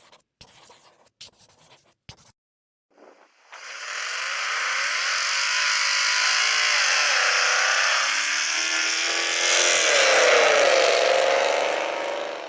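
Compressed-air paint spray gun spraying: a loud, steady hiss of air and atomised paint that starts a few seconds in and cuts off abruptly when the trigger is released. A few faint clicks come before it.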